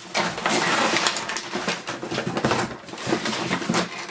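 Cardboard and packing material rustling and scraping as a gift box is pulled out of a cardboard shipping carton, a dense crinkly rustle that fades out near the end.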